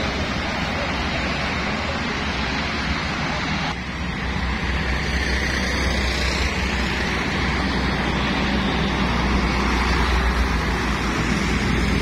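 Road traffic: buses and cars passing with steady tyre and engine noise. About four seconds in the sound changes abruptly and a deeper engine rumble from a nearby bus grows louder.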